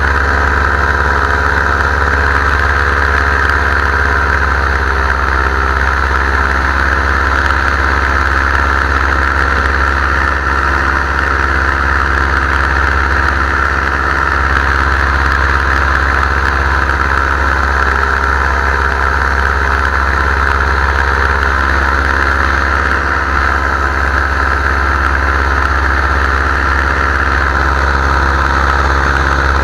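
Paramotor engine and propeller running steadily at a constant throttle in flight, loud and close to the microphone, with no change in pitch.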